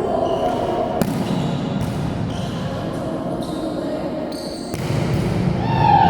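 Volleyball play in a gym: the ball is struck sharply once about a second in over a steady din of players' voices, and the noise grows louder near the end.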